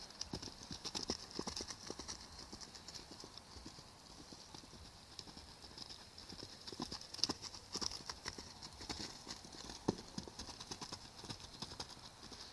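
A horse's hooves thudding on a soft dirt pen as it canters and bucks, an uneven run of footfalls with a couple of louder strikes about seven and ten seconds in.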